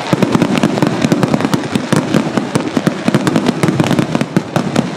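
Rapid-fire fireworks barrage: many shells bursting in quick succession, a dense run of bangs and crackling pops.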